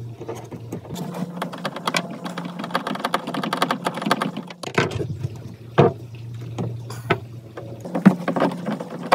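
Clicks and light knocks of metal hardware being handled while an aluminum mounting foot is fitted and bolted, over a steady low hum that cuts out twice.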